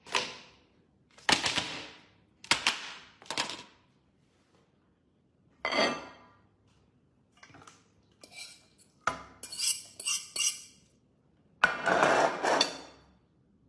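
Ceramic plates knocking and clattering on a table, then a metal fork clinking and scraping on a plate, in a string of short, separate clatters with longer runs of scraping near the end.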